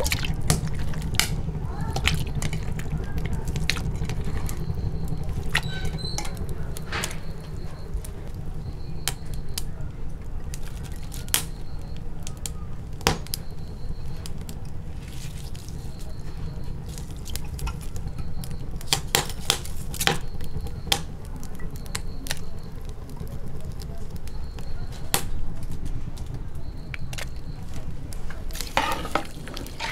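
Raw chicken pieces, sliced onion and spices being added by hand to an aluminium pot of water: scattered clinks and knocks of a steel plate and bowl against the pot, with small splashes, over a steady low rumble.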